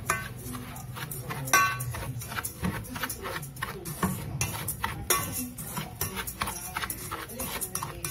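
A spoon scraping and knocking against a metal pot while stirring brown sugar: a steady run of irregular scrapes and clicks, with short metallic rings at the start and about a second and a half in.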